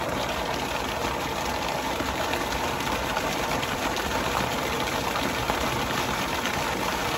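River water rushing steadily over rocks, a continuous even hiss.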